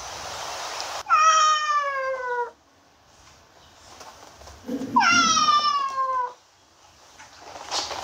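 Domestic cat meowing twice: two long meows, each about a second and a half, sliding down in pitch.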